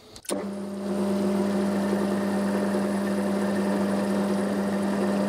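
Metal lathe switched on with a click, its motor coming up to speed within about a second and then running with a steady hum. The chuck spins the threaded rod freely, not cutting.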